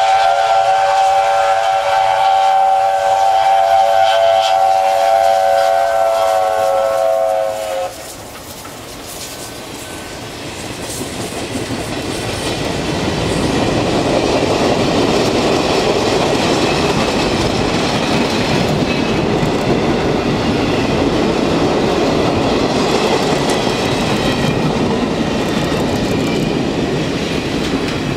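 Chinese QJ steam locomotive's chime whistle blown in one long chord that stops about eight seconds in. Then the train passes close by, a rising rush of locomotive and rolling passenger cars with wheels clicking over the rail joints, loud to the end.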